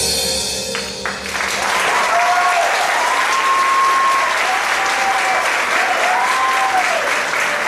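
Theatre audience clapping and cheering as the belly-dance music ends about a second in. A few drawn-out voices call out over the applause.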